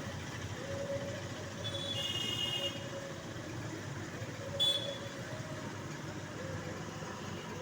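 Steady outdoor traffic-like rumble, with a high tone lasting about a second, two seconds in, and a short sharp sound in the middle.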